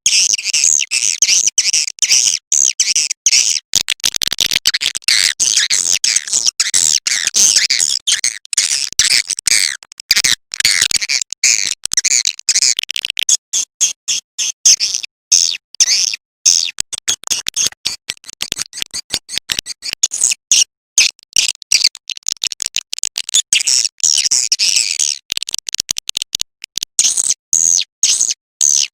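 Recorded swiftlet call played as a lure for edible-nest swiftlets: rapid, high-pitched chirping and twittering, chopped by many very short breaks.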